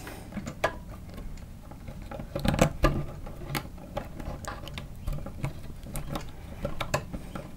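Insulated copper wires scraping and tapping against a steel electrical box as they are bent and bundled together by hand: irregular small clicks and rustles, busiest about two and a half seconds in.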